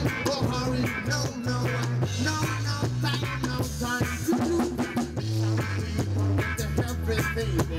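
Rock band music: electric guitars, bass and a drum kit playing a steady beat, with a singing voice.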